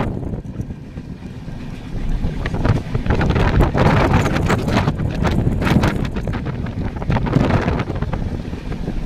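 Wind buffeting the microphone at the open door of a moving passenger train, over the steady rumble of the coaches running on the track, with a few sharp clacks of the wheels over the rails.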